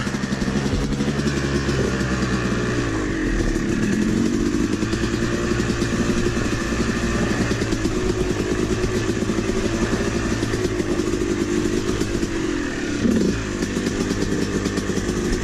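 Yamaha YZ250 single-cylinder two-stroke dirt bike engine running at low revs, rising and falling with the throttle while descending a steep sandy rutted downhill. There is a short burst of revs about thirteen seconds in.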